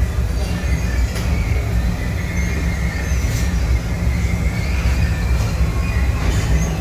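Chain-driven base conveyor running steadily under a line of empty steel drums on a spray-painting line: a continuous mechanical rumble with a faint high whine and a few light clicks.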